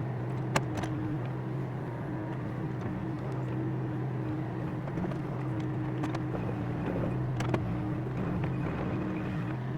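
Diesel engine of an excavator idling steadily, with a few short clicks or clanks about half a second in, at about a second and again near the end.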